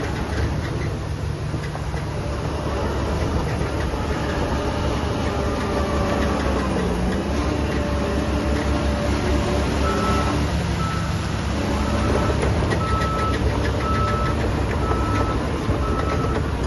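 Heavy diesel construction machinery running under load, its engine pitch shifting as it works. From about ten seconds in, a reversing alarm beeps about once a second as a machine backs up.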